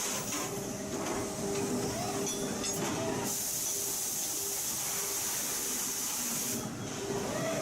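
Factory machinery running with a steady hum. From about three seconds in until near the end, a loud hiss of escaping air or spray plays over it.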